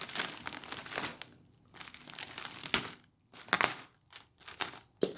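Keyboard box packaging being handled and worked open: irregular crinkling and rustling with sharp crackles, broken by a few short pauses.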